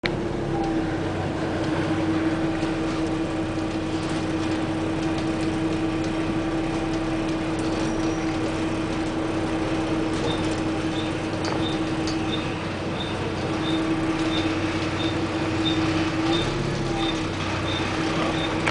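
A double-decker bus heard from inside: a steady engine and drivetrain hum with a constant whine, rising slightly near the end. From about halfway in, the turn indicator ticks regularly, a little under twice a second.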